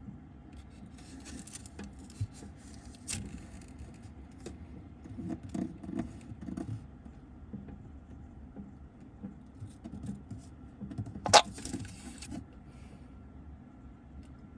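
Scattered clicks, rustles and dull knocks of a White's tree frog feeding, with one sharp, loud click about eleven seconds in followed by a brief rustling hiss.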